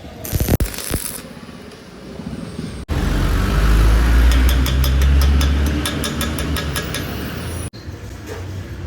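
Stick (arc) welding: the arc crackling and sputtering with a low electrical hum underneath, loudest in the middle stretch. The sound breaks off abruptly twice.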